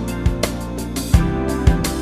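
Background music: guitar with a steady beat of percussive hits.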